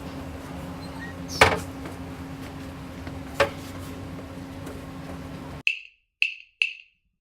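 A steady hum with two sharp knocks, then the background cuts out abruptly and four short, sharp clicks follow about half a second apart.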